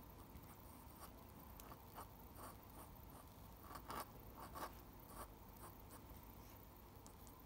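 Faint scratching of a steel dip pen nib on paper in short strokes as ink hatching is drawn. A couple of louder strokes come about four seconds in.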